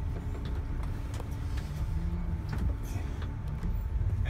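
Temsa Safir coach's diesel engine running with a steady low rumble as the bus drives away at low speed, heard from inside the cabin near the front, with a few light clicks.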